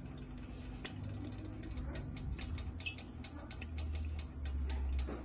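Rapid, even clicking, about six clicks a second, over a low steady hum.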